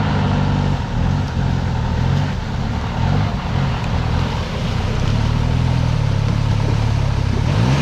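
Engine of an off-road 4x4 running steadily at low revs as it crawls along a muddy track, its note wavering slightly.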